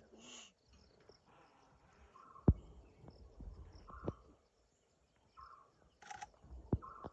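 Quiet forest ambience with a short animal call repeated about every second and a half, and a few sharp clicks, the loudest about two and a half seconds in.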